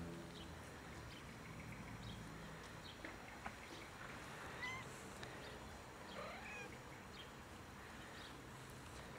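Stray tabby-and-white cat making a couple of faint, short mewing calls about halfway through while its head is being stroked.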